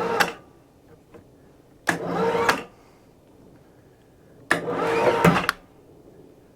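Electric winch hoist run in three short bursts, each a steady motor whine lasting under a second, as it pulls a log over on the sawmill bed.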